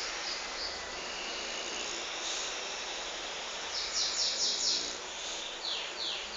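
Steady background hiss with small birds chirping high: a quick run of about five chirps about four seconds in, and three short falling chirps near the end.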